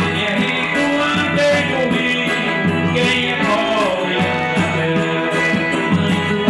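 Live forró pé de serra band music with a steady dance beat, a man singing over it into a microphone.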